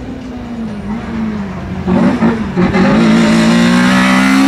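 Race car engine approaching under hard driving. About two seconds in it gets much louder and the note wavers as the car slows through the chicane, then it rises steadily under full throttle as the car passes close by.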